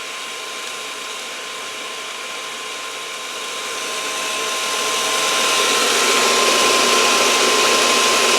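Pool pump motor running with a steady whine while water rushes through the filter on backwash; the noise swells from about three seconds in and then holds, as the air is pushed out of the system.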